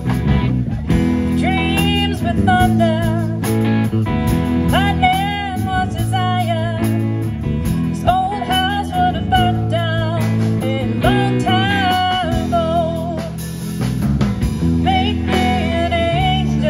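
Live band playing through PA speakers: a woman sings the lead with a wavering vibrato over electric guitars, bass and drum kit.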